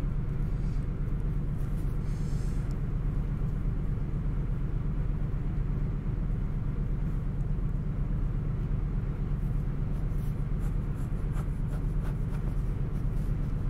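Pen and pencil strokes scratching faintly on paper while a fly drawing is lined and shaded, more of them in the last few seconds, over a steady low hum.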